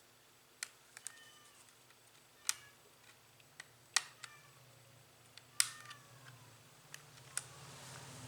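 A dozen or so sharp clicks and light metallic taps at irregular intervals, several leaving a short ringing tone, with a low hum building from a few seconds in. These are small tools and parts being handled during a laptop SSD upgrade.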